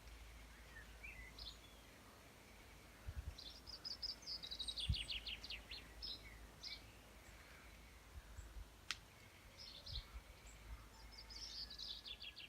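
Songbirds singing: two runs of quick, high trilled notes and a few single chirps, over a steady low rumble with soft thumps. One sharp click about nine seconds in.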